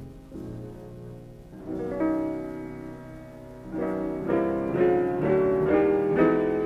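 Background piano music: slow sustained chords at first, then quicker notes that grow louder through the second half.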